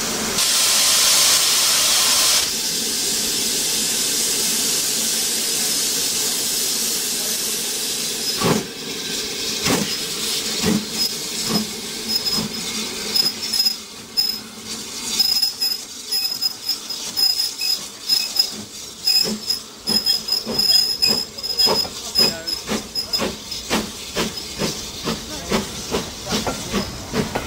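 BR Standard Class 9F 2-10-0 steam locomotive No. 92212 hissing steam, loudest for the first couple of seconds, then starting away about eight seconds in with sharp exhaust beats that come quicker and quicker. Near the end its coaches roll past in a rhythmic clatter, with a faint high squeal.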